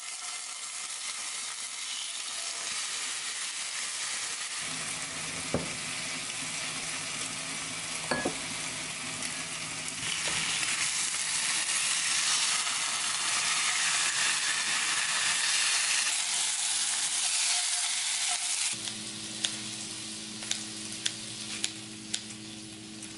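Korean-BBQ-marinated beef short ribs sizzling in a hot cast-iron skillet, the sizzle growing louder about ten seconds in as more ribs go into the pan. Near the end the sizzle falls away and a few sharp clicks of metal tongs follow as the ribs are lifted out.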